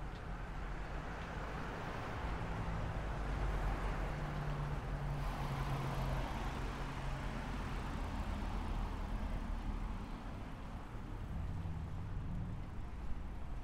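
Street traffic: motor vehicles driving past, their engine hum swelling and fading over a few seconds in the first half, with another vehicle passing near the end.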